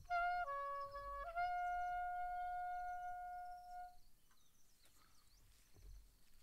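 Saxophone playing the last notes of a phrase: a short note, a step down to a lower note, then back up to one long held note that fades out about four seconds in.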